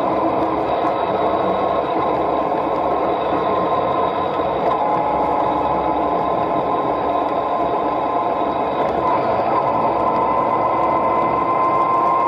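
Motorcycle engine running steadily at cruising speed on the open highway, heard from the bike carrying the camera.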